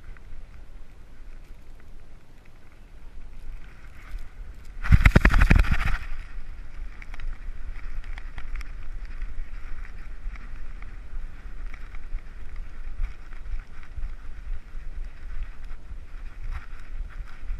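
Muffled steady hiss through a dog-mounted GoPro's housing. About five seconds in it is broken by a second of loud, rapid scraping and rubbing as the dog rolls in the sand against the camera.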